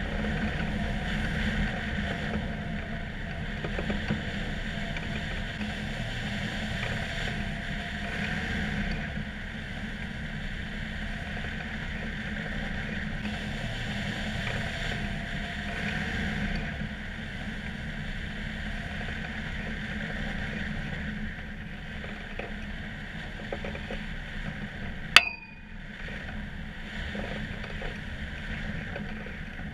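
Wind rushing over a hang glider in flight and buffeting the wing-mounted camera's microphone: a steady low rumble with hiss. Near the end a single sharp click with a brief metallic ring.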